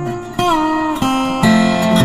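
Background music: acoustic guitar playing sustained notes and chords, one note sliding in pitch about half a second in.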